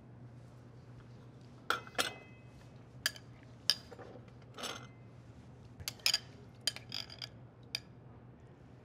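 Metal spoon clinking against a glass bowl and glassware knocking on the table while shrimp ceviche is spooned into a martini glass: about a dozen separate light clinks, one ringing briefly about two seconds in.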